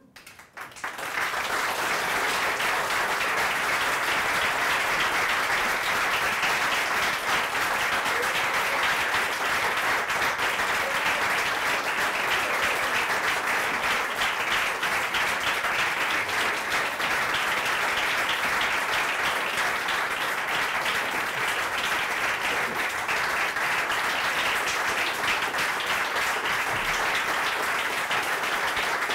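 Audience applauding: after a brief hush, the clapping starts about a second in and keeps up steadily.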